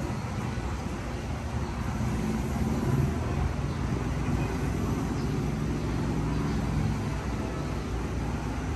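Steady low rumble of road traffic, with no distinct single events.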